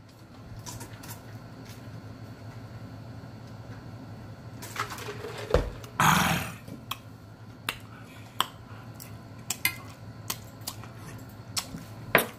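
Close-up mouth sounds of someone eating: scattered lip smacks and chewing clicks, with a loud breathy exhale through an open mouth about six seconds in, a reaction to the heat of a serrano pepper. A steady low hum runs underneath.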